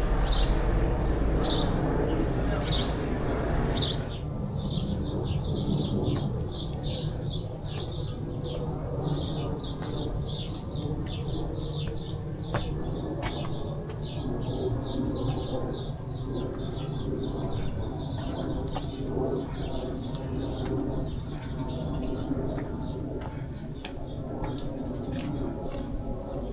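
Small birds chirping over and over, short high calls in quick succession, over a steady low background rumble. The background is louder for the first few seconds and drops about four seconds in.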